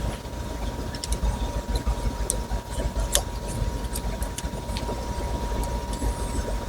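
Light, scattered clicks of a small Torx driver and screws as a folding knife is unscrewed and taken apart, over a low steady rumble.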